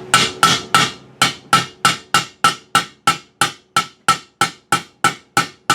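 Hammer striking metal in a steady, even rhythm, about three ringing blows a second, like tapping a part home.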